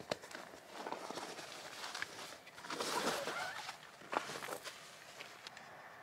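Nylon fabric rustling and a few light clicks as a Nemo Stargaze folding camp chair is pulled from its carry bag and its frame is unfolded. The rustling is loudest about three seconds in.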